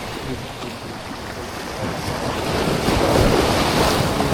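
Surf washing with wind buffeting the microphone, the rush of water swelling louder about halfway through.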